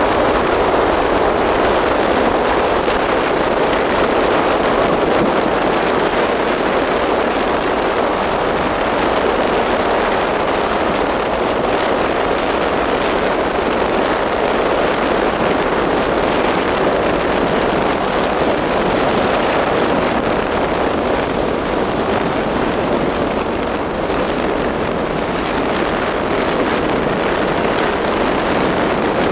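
A vehicle travelling on the road: a steady rush of wind and road noise over the running engine.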